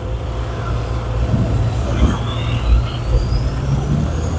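Motor vehicles in slow road traffic, engines running with a steady low rumble. A thin high whine rises in pitch through the second half.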